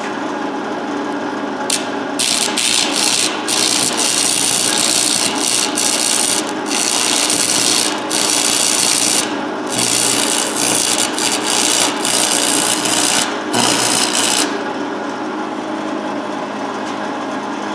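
Electric grinder running, its wheel grinding the hardened steel of a railroad-track anvil. The harsh grinding hiss cuts in and out as the wheel is pressed on and lifted off. About fourteen seconds in it stops, and only the motor is heard.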